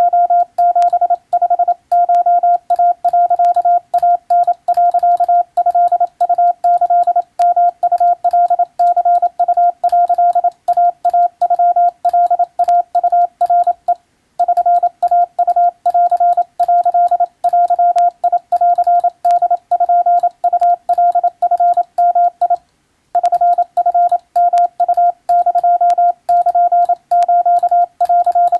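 Hand-keyed Morse code (CW) in Japanese wabun code: a single steady beep switched on and off rapidly in short and long elements, with brief gaps between characters. The keying breaks off for a moment twice, about halfway and again about three quarters of the way through.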